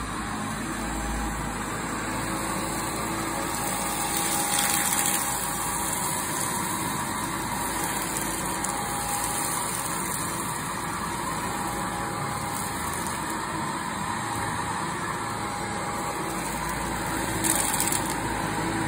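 Upright vacuum cleaner running steadily as it is pushed over carpet, a constant motor whine with rushing air. It gets briefly louder twice, about four seconds in and near the end.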